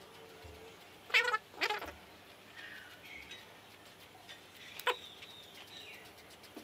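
Pomeranian puppy vocalising: two short, sharp, high yelps about a second in, then faint thin whines.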